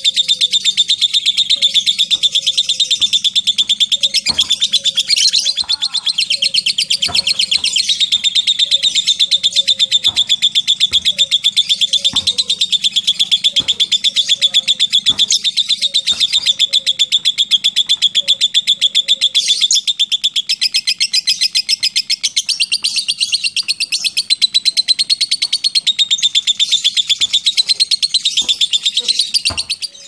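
Lovebird giving a long, unbroken ngekek: a very rapid, high chattering trill that runs on without a pause. Soft low notes repeat about every three-quarters of a second beneath it for most of the time.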